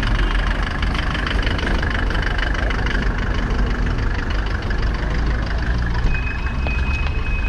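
Street traffic: car and minibus engines idling and running under a steady low rumble, with a short thin high tone about six seconds in.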